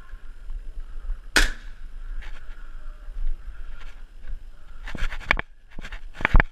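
Airsoft gunfire inside plywood rooms: one sharp crack about a second in, then a cluster of cracks and clatter near the end.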